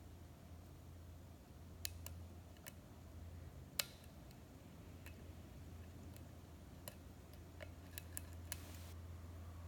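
Faint, scattered metallic clicks of a hook pick working the pins inside a six-pin pin-tumbler lock cylinder, about a dozen irregular ticks with one louder click near the middle, over a steady low hum.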